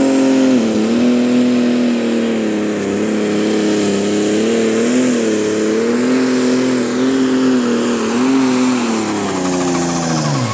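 Warrior, a Limited Superstock pulling tractor, running its diesel engine at full revs under load while pulling the sled, with a high whine over it and the pitch wavering slightly. The revs fall away sharply near the end.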